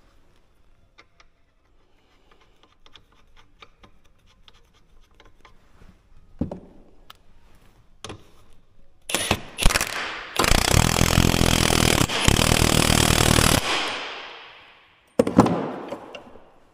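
Light ratchet clicks as the nut under the piston-cup assembly is turned, then an air impact wrench runs loudly for about three seconds and trails off, with a second shorter burst near the end.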